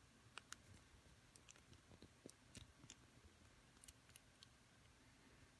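Faint, irregular small clicks and ticks of a small screwdriver tightening the screw into the plastic LEGO light brick's casing.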